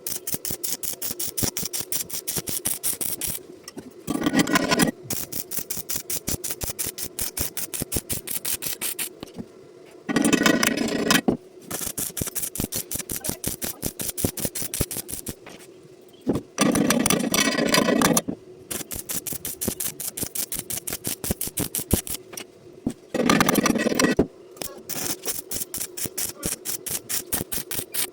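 Stick welding arc crackling in a fast, even stream over a steady hum, broken four times by louder, fuller stretches of about a second or two.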